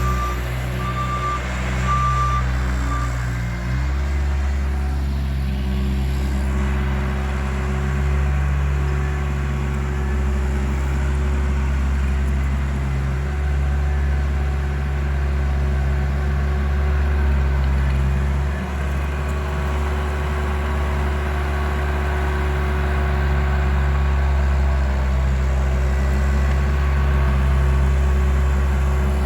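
Bobcat loader's engine running steadily under work, its pitch shifting about four seconds in. A reversing alarm beeps a few times at the start.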